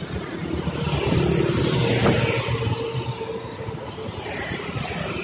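Street traffic of cars and motorcycles passing close by. One vehicle's engine swells about a second in and then slowly fades as it moves away.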